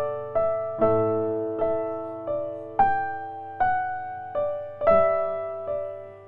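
Background music: a slow piano melody, one note struck about every three-quarters of a second and left to ring and fade.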